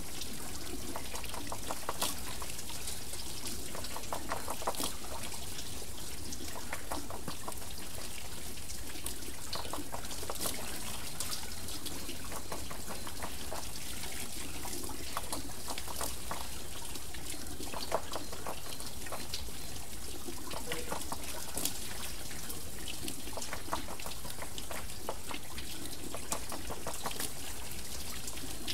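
Water trickling and pouring off a turning water wheel: a steady splashing run of water with many small, irregular splashes and drips.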